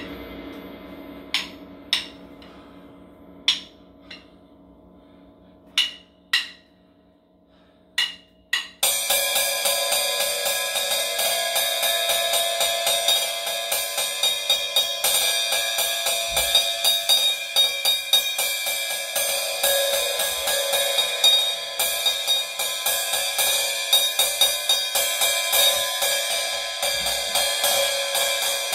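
Paiste cymbals played with drumsticks. A low ring dies away under a few separate, light stick taps; then, about nine seconds in, rapid continuous strokes build a loud, dense, ringing cymbal wash that keeps going.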